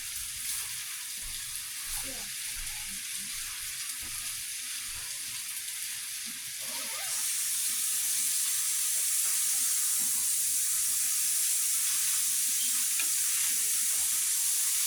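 Rice frying and browning in a pan, a steady sizzle with a few light scrapes of stirring in the first half; the sizzle grows louder about seven seconds in.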